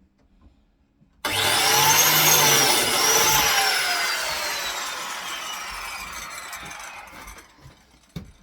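Biscuit joiner motor switched on about a second in with a high whine. The whine dips briefly as the blade cuts the slot into the timber, then the joiner is switched off and spins down with a long falling whine.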